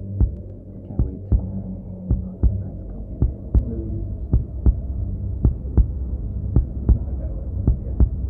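Heartbeat sound effect: paired lub-dub thumps about once a second over a low, steady droning hum.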